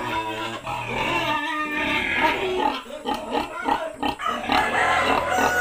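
Hungry pigs squealing and grunting in their pen, calling for feed at feeding time: overlapping cries that rise and fall in pitch.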